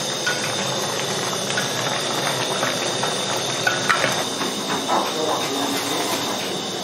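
Steady hiss of meat cooking in a pot over a gas-cylinder burner, with a few light knocks from a wooden spoon against the pot.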